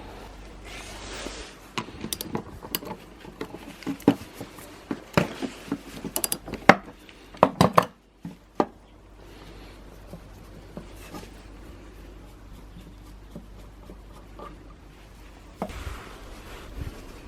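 Hand tools and small metal parts of a brush cutter clinking and knocking during disassembly: a run of sharp clicks for several seconds, loudest near the middle. After that it goes quieter over a low steady hum, with a brief rustle near the end.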